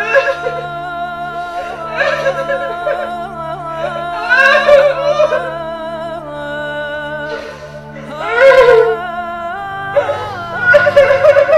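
Slow music: a held, gliding melody over steady low sustained notes, swelling louder in a few phrases.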